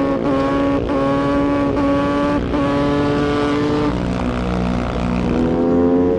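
Two-stroke motorcycle engine revving high, its pitch held up with brief dips every fraction of a second, dropping lower about four seconds in and rising again near the end before it cuts off.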